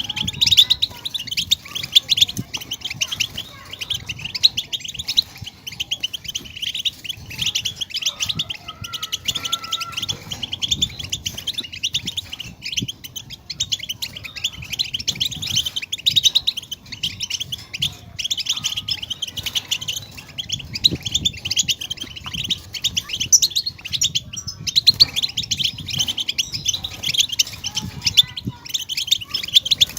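European goldfinches twittering and singing: a dense, unbroken stream of quick, high chirps and trills from several birds overlapping.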